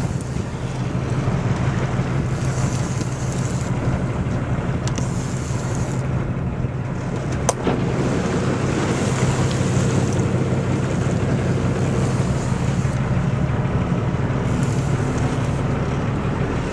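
Fishing boat's engine running steadily under a rush of wind and sea noise, with one sharp click about seven and a half seconds in.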